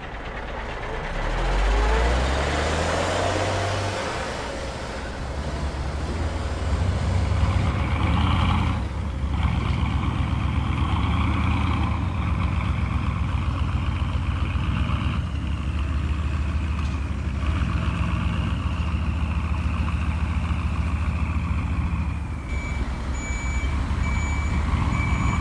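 A simulated truck engine sound from an RC model tow truck. It revs up over the first couple of seconds, then runs steadily with a whine over it. A reversing beeper starts beeping near the end.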